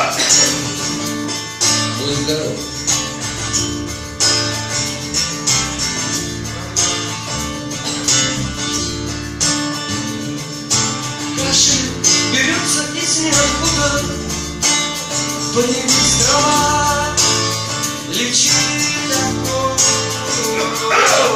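Live rock band playing, led by guitar, with a steady beat.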